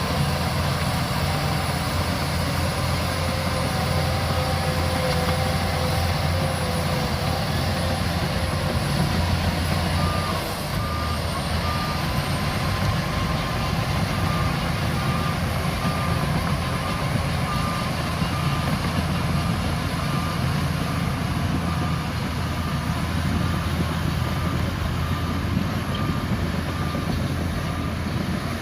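Shantui DH17C2 bulldozer's diesel engine running steadily under load. About a third of the way in a reversing alarm starts, beeping evenly about twice a second, as a machine backs up.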